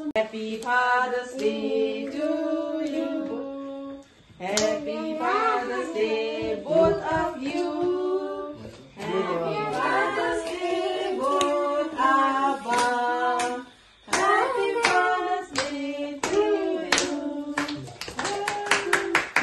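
A small group singing a celebration song together, with hand claps along the way. Near the end the clapping turns into quick applause.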